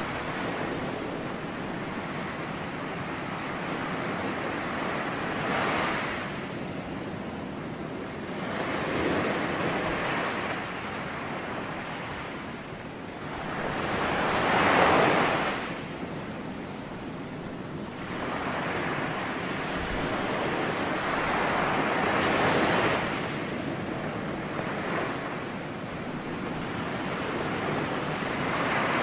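Ocean waves breaking and washing on the shore, a steady rush that swells with each wave, about one every three to four seconds, the biggest about halfway through.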